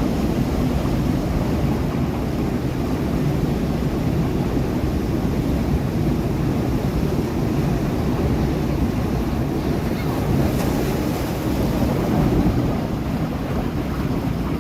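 Ocean surf washing against sea rocks, a steady deep wash of noise without distinct crashes, with wind buffeting the microphone.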